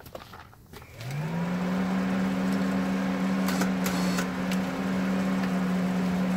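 Electric ATV winch motor spinning up about a second in and then running with a steady hum, paying out its steel cable, with a few light clicks midway.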